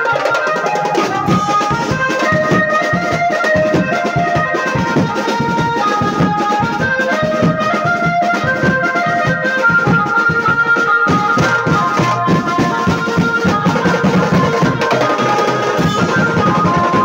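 Procession band music: a fast, steady beat on a kit of steel-shelled drums and stick-beaten hand drums, under a melody of held notes.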